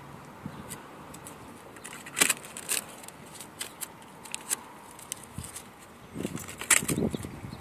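Blue painter's masking tape being peeled off a car bumper and crumpled by hand. It makes a few sharp crackles and rustles, loudest about two seconds in and again near the end.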